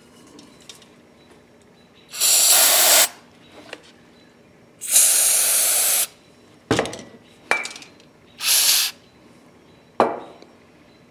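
Aerosol carburetor cleaner sprayed into the high-speed adjusting screw's hole in a Stihl BG 55 leaf blower's carburetor: three hissing bursts, about a second, a second and half a second long, with a few sharp clicks and knocks of handling in between.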